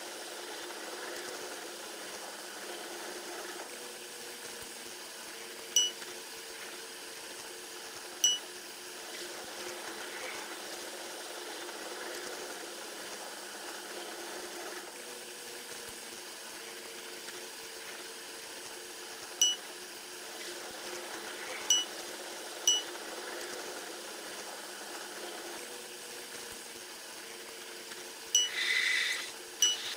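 Train sound from a locomotive cab played back at ten times normal speed: a steady rushing hiss, broken a handful of times by short, sharp high chirps and, near the end, by a brief louder high tone.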